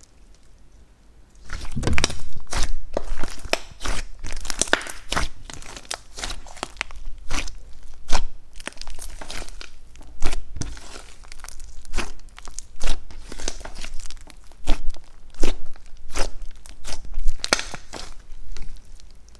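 Thick slime mixed with clay being kneaded, squeezed and stretched by hand, giving a dense, irregular run of sharp clicks and pops as air pockets burst, starting about a second and a half in.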